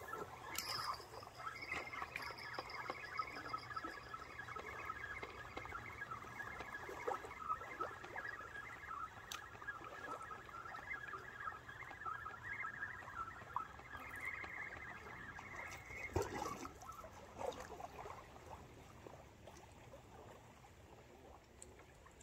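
Spinning reel being wound in steadily, a whirring hum from its gears that stops about sixteen seconds in, with a knock as the winding ends. Small waves lap faintly at the shore underneath.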